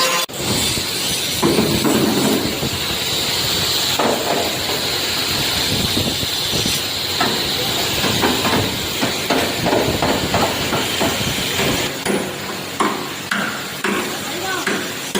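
Irregular hammer blows on a car's sheet-metal body panel during dent repair, over a steady hiss.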